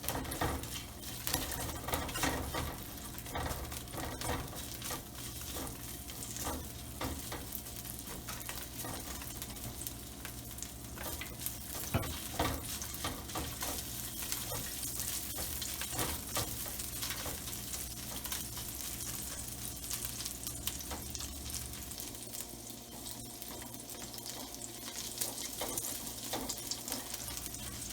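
Ginger and garlic sizzling in hot oil in a pan, with scattered clicks and scrapes as they are stirred.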